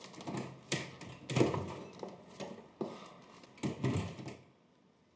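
Footsteps and a room door being opened and shut, heard as a string of knocks and thuds. The loudest comes about a second and a half in, and they stop after about four and a half seconds.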